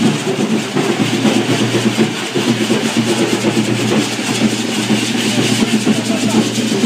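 Handheld correfoc fireworks (carretilles) fizzing and hissing steadily as they spray sparks, with a dense rough crackle underneath.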